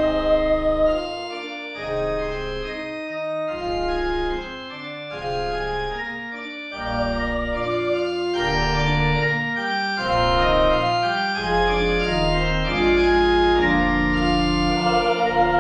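Organ playing slow, sustained chords over a low bass line, the chords changing every second or two.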